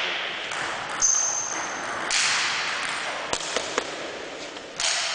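Table tennis rally: the ball clicking off the table and bats in short sharp clicks, three in quick succession a little past the middle. A brief high squeak comes about a second in.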